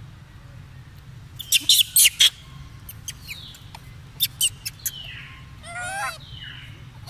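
Animal calls: a quick run of sharp clicking calls, short falling chirps, and one wavering squeal about six seconds in.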